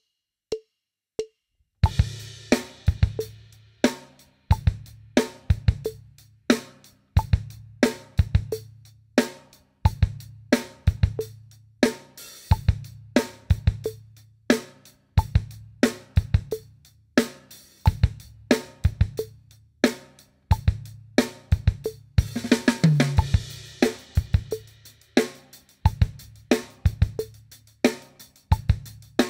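Acoustic drum kit playing a rock groove at a slow tempo: hi-hat keeping time, snare backbeat on 2 and 4, and kick drum on beat 1, the 'e' of 1 and the 'and' of 2. It follows a few count-in clicks. About two-thirds of the way in, a short fill with a cymbal crash leads into the same groove with sixteenth notes on the hi-hat.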